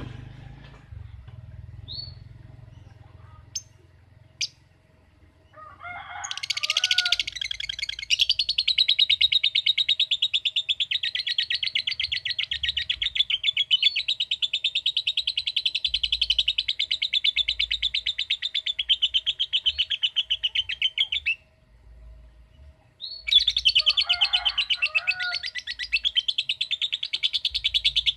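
Lovebird giving its long, rapid chattering trill (the 'ngekek' song), a fast string of high, evenly repeated notes. A few short chirps come first, then one bout of about fifteen seconds, a brief pause, and a second bout starting near the end.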